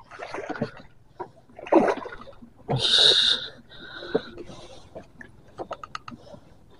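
A hooked giant snakehead (toman) splashing and thrashing at the water's surface beside the boat, in several short bursts with the loudest about three seconds in. A quick run of clicks comes near the end.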